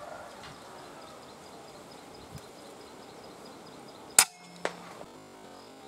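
A single air-rifle shot, a sharp crack about four seconds in, followed about half a second later by a fainter knock. Faint steady chirping of birds or insects sits in the background.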